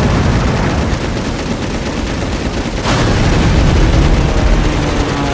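Dense, rapid anti-aircraft gunfire from a warship, with flak shells bursting over a deep rumble. One sharper crack comes about three seconds in.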